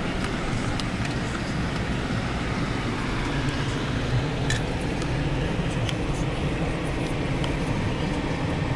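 Steady road and engine noise heard from inside a car driving slowly, with a few faint clicks scattered through it.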